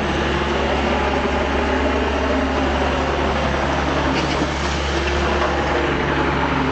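A vehicle engine running steadily at idle, a low, even hum without changes in speed.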